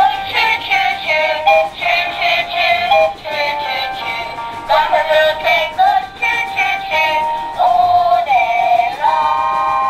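Background music: a synthesized melody of short, stepping notes in a high register, with no bass and no sung words.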